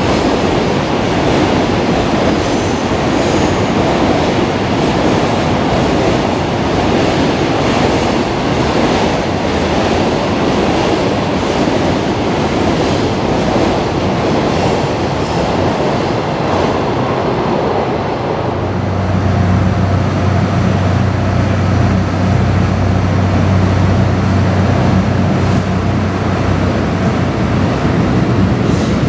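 Freight train of container wagons rolling past, a dense rumble with the wheels clacking over rail joints. About two-thirds of the way through, the sound settles into a steadier train run with a low hum.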